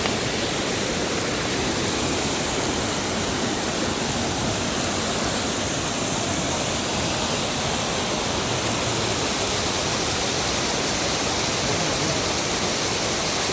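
River water rushing steadily: a loud, even hiss of fast-flowing water with no breaks.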